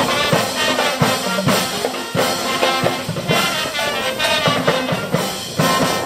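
Brass marching band playing live: trumpets and a sousaphone carrying the tune over a steady drum beat.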